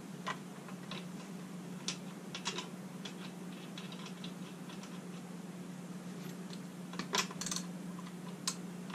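Light scattered clicks and taps of a new spark plug being fitted into a small 49cc scooter engine, a few at first and a cluster about seven seconds in, over a steady low hum.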